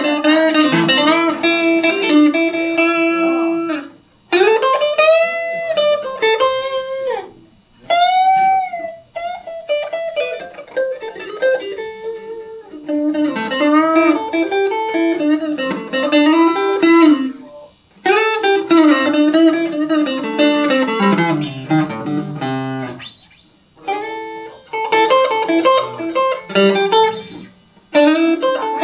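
Electric guitar, a Van Zandt Telecaster through a Roland JC-120 amplifier, playing a bluesy lead in short single-note phrases with string bends, broken by brief pauses.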